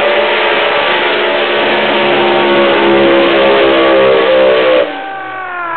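Two doorslammer drag cars, the Striker Holden Monaro among them, running flat out down the strip from the launch: a loud, dense engine howl that climbs slowly in pitch. About five seconds in it drops sharply in level and the note falls, at the end of a 5.9-second pass.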